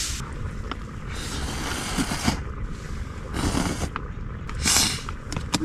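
Noodles being slurped from a pouch with chopsticks: three slurps, the first the longest.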